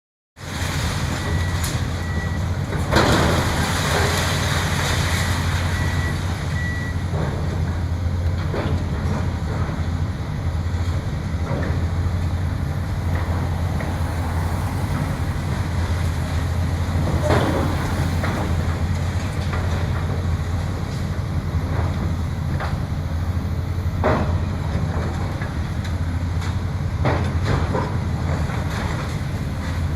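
Heavy diesel demolition machinery running steadily, with a crash of breaking debris every several seconds. A vehicle's reversing alarm beeps in the first few seconds.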